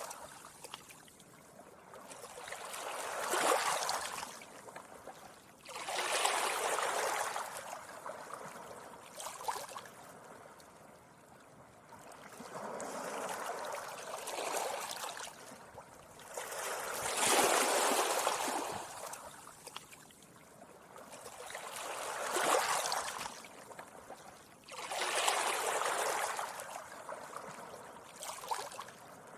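Gentle sea waves washing up a beach, each wave a swelling hiss of surf that rises and falls away, coming every few seconds with quieter lulls between.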